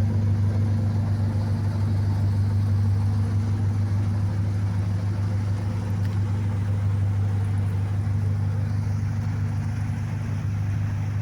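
Car engine idling steadily, a constant low exhaust drone with no revving.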